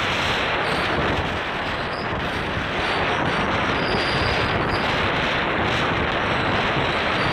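Wind buffeting the camera microphone: a loud, steady rushing noise.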